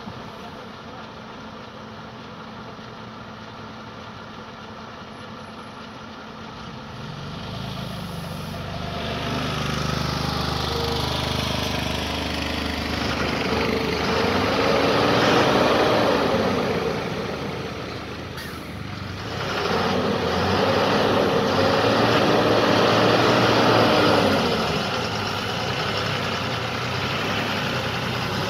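Diesel engine of a loaded multi-axle heavy truck, faint and steady at first, then growing louder from about seven seconds in as it pulls slowly past. Its note rises and falls twice, with a brief dip in between.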